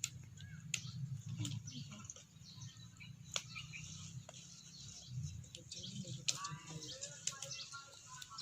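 Small birds chirping in short high calls, with scattered sharp clicks and taps over a steady low hum; a longer pitched call comes about six seconds in.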